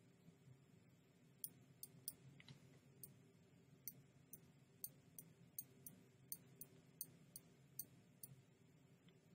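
Faint computer mouse clicks, a string of short sharp ones about two a second, with a low room hum beneath.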